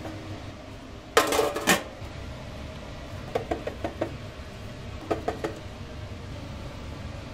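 Metal kitchen utensils clattering against dishes: a loud rattle of strikes with a brief ringing about a second in, then two shorter runs of light taps, over a steady low hum.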